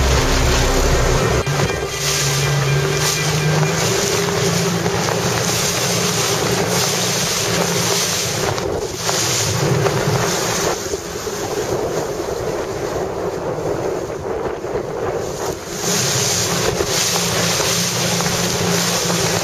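Wind buffeting the microphone over rushing water from a boat under way, surging and easing in level, with a faint low hum underneath.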